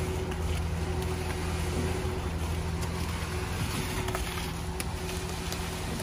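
Concrete pump's engine running steadily with a constant low hum while it pumps concrete through the hose.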